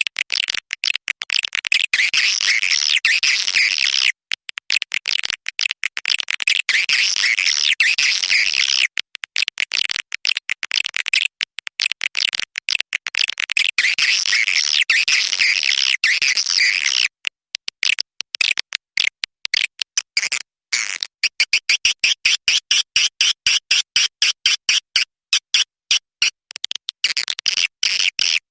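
Recorded edible-nest swiftlet calls played back as a lure sound for a swiftlet house: rapid, high, buzzy twittering chopped into quick pulses. About halfway through it breaks into a stuttering run of separate chirps.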